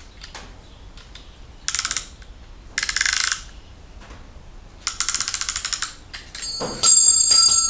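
Piston ring compressor's ratchet clicking rapidly in three bursts as it is wound tight around a piston with an Allen key. Near the end comes a loud metallic ringing, like a steel tool or part clinking.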